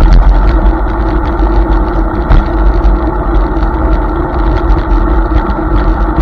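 Hiboy S2 Pro electric scooter riding over rough pavement: a steady rumble with wind noise on the microphone, and frequent small clicks and rattles.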